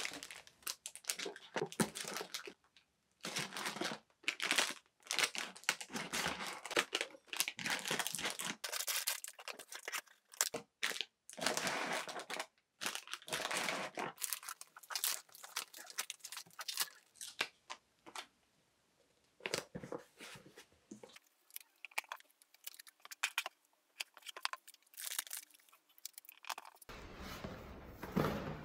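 Clear cellophane treat bags crinkling and kraft cardboard gift boxes being handled and folded, in irregular bursts of rustling with short pauses.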